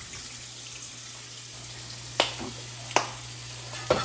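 Green beans frying in hot oil in a skillet, with pork chops searing on a stovetop grill pan: a steady sizzle. Three sharp clicks come about a second apart in the second half.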